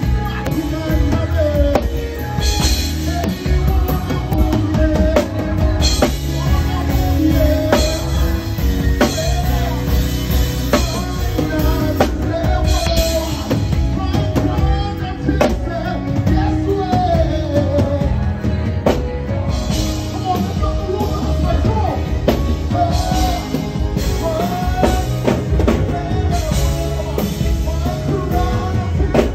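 Live gospel band playing a Ghanaian worship song, driven by a drum kit with kick drum and cymbal hits, with a man singing the lead melody over it.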